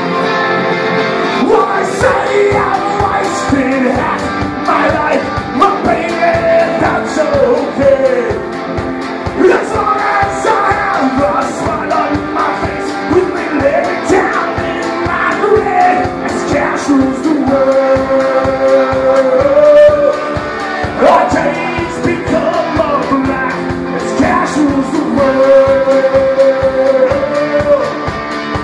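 Live punk rock band playing: an electric guitar alone at first, then drums and bass guitar come in about two seconds in, with a man singing lead vocals over them.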